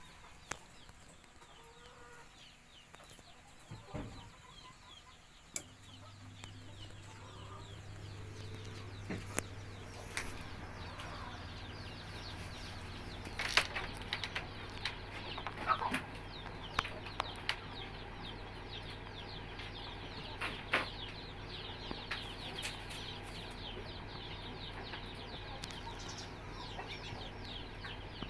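Many chicks peeping together, a dense run of quick, high, falling cheeps. A steady low hum from the egg incubator's machinery comes in about five seconds in, with a few scattered knocks.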